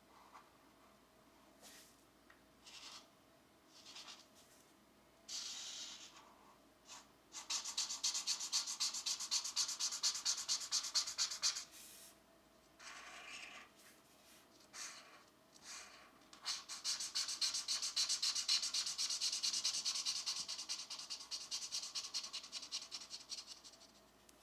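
Pencil scratching on coloring-book paper. A few short strokes come first, then two long runs of fast back-and-forth shading strokes, the second fading near the end.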